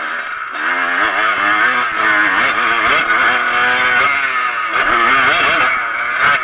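Kawasaki KX125's 125 cc two-stroke single-cylinder engine revving hard under throttle, its pitch rising and falling as the bike accelerates. The throttle comes on strongly about half a second in, and there is a brief drop near the middle before it picks up again.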